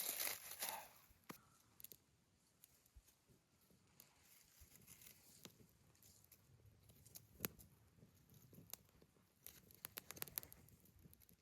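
Dry twigs being handled: a short rustle at the start, then scattered faint clicks and small cracks, with a quick run of them near the end.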